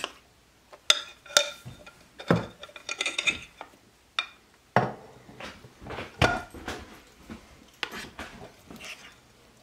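A large slotted spoon knocking and scraping against a mixing bowl as thick cake batter is scooped out and dropped into a slow cooker, in irregular clinks and scrapes.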